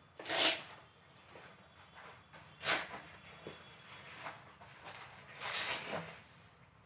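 Metal detector carry bag and shaft being handled as the stick is pulled out of the bag. There are three fabric swishes: a loud one about half a second in, a short sharp one near three seconds, and a longer one around five and a half seconds.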